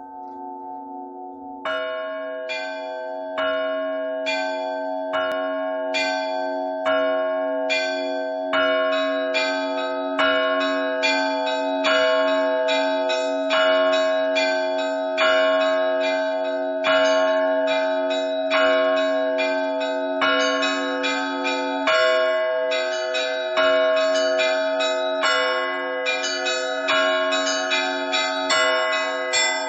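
Russian Orthodox church bells rung in a festive peal (trezvon): smaller bells struck again and again in a rhythmic pattern over the sustained hum of the larger bells. The pattern grows busier, with more bells joining, after the first few seconds.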